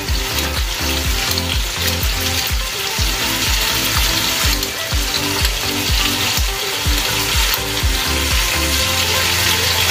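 Chicken drumsticks sizzling in butter in a pot while a pepper mill is twisted over them, its grinding mechanism clicking like a ratchet. Background music with a steady beat plays underneath.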